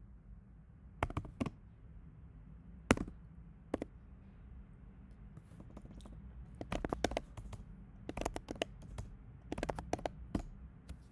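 Computer keyboard keys clicking in short irregular runs as someone types, over a low steady hum.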